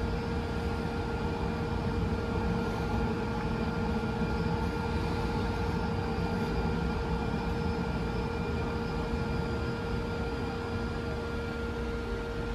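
Interior sound of a 2023 Siemens LRV4 light rail car running along the track: a steady rumble with a constant electric hum of several even tones, heard from inside the passenger cabin.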